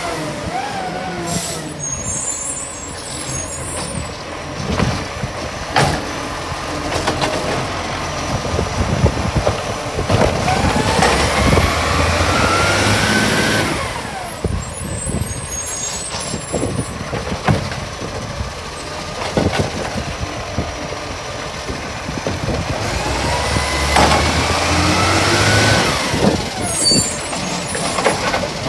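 Garbage truck working: its engine revs up twice, the pitch rising for a few seconds each time before cutting off sharply. Short air-brake hisses and knocks come in between.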